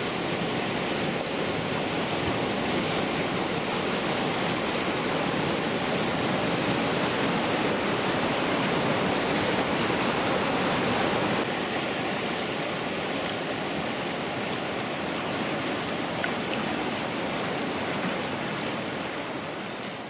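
Heavy whitewater rapids on a large river rushing steadily, a dense even noise of crashing waves, a little quieter from about eleven seconds in.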